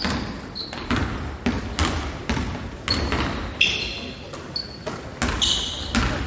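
A basketball bouncing and being passed and caught on a hardwood gym floor, a sharp thud every half second or so at an uneven pace, with short sneaker squeaks in between.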